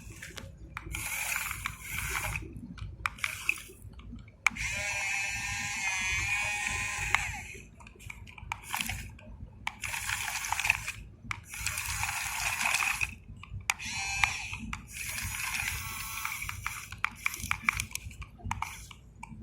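RC model excavator's motors and gears whirring in a run of start-stop bursts as the machine works, one longer burst with a wavering whine.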